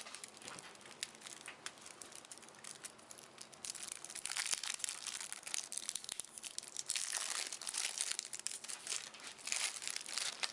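Plastic wrapping on a sealed trading-card deck being crinkled and torn open by hand, a dense crackling that gets louder about halfway through and stops at the end.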